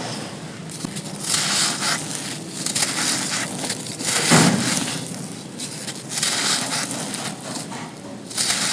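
Dry, gritty sand-like chunks being crushed and crumbling in a series of crunching bursts about a second apart. The loudest comes about four seconds in, with a dull thud.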